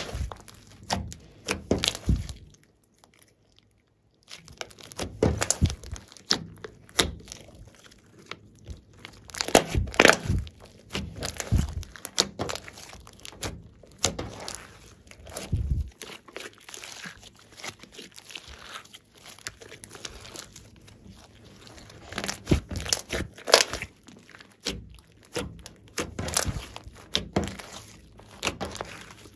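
Glossy slime mixed with clay being kneaded, stretched and pressed by hand, giving irregular sticky clicks and pops as air pockets burst. There is a brief pause about two seconds in.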